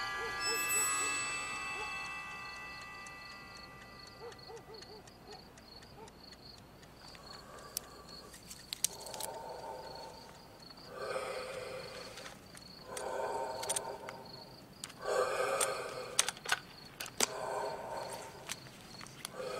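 Quiet film soundtrack of a night scene: chime-like music fades out in the first few seconds. Then crickets chirp steadily, with scattered small clicks, and from about nine seconds in a soft sound repeats about every two seconds.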